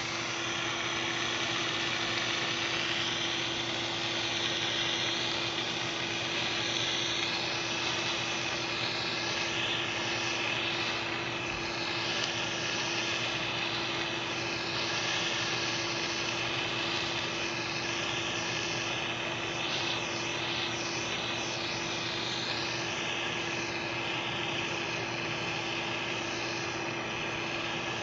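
Jeweller's gas torch flame hissing steadily while it heats a metal ring to anneal it, with a steady low hum underneath.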